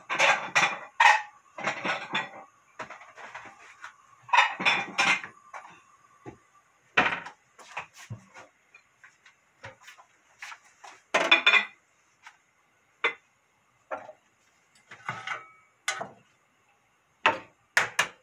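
Kitchenware clattering: dishes, pots and utensils knocked and set down in an irregular series of short clatters and knocks, the loudest near the start and around the middle.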